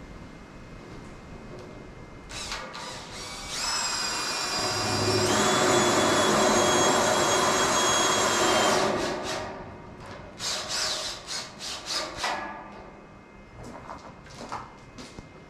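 Cordless drill driving self-tapping hex-head screws into tin sheeting on a steel frame: a steady motor whine for about five seconds, stepping up in pitch partway, then several short bursts of the drill.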